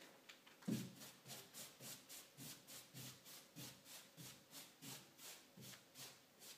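Paintbrush swishing back and forth across a wall, spreading wet Brushed Suede textured paint in short criss-cross strokes, about three a second. The strokes are faint; the first and loudest comes about a second in.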